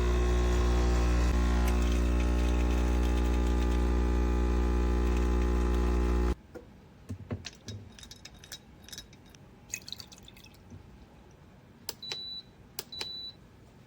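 Espresso machine pump buzzing steadily as it pushes water through the coffee, stopping abruptly after about six seconds. Then come light clinks and taps of cups and parts, and two short high beeps near the end.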